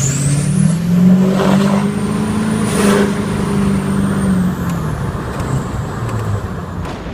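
6.6 L LMM Duramax turbo-diesel revving: the engine climbs and holds for about four seconds, with a high turbo whistle rising alongside it, then both drop back as the revs fall.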